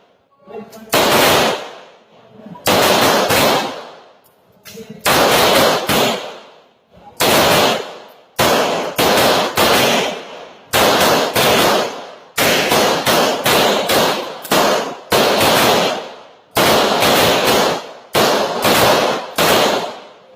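Glock 9mm pistol firing a long course of fire: about thirty shots, in quick pairs and rapid strings with short pauses between, each shot trailing off in an echo.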